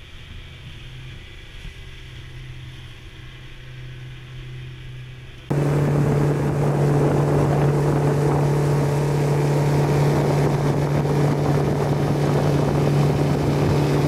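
Small boat's engine running steadily under way, with water and wind noise. It is muffled at first, then about five seconds in it turns suddenly much louder, with wind buffeting the microphone.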